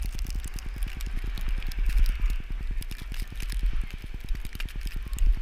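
Blizzard wind buffeting a GoPro's microphone: a steady low rumble with a fast flutter, and scattered crackles and scrapes over a light hiss.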